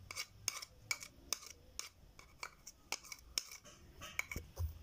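Metal spoon clicking and scraping against a small bowl as yogurt is scraped out into the batter: a run of short, sharp clicks, irregular, about three a second.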